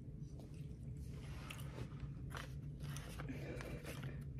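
Soft eating sounds close to the microphone: a potato-cheese bagel being torn apart and chewed, in scattered irregular strokes over a low steady hum.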